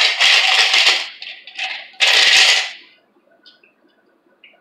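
Ice cubes rattling and clinking in a drinking glass, in two loud bursts: one in the first second and another about two seconds in.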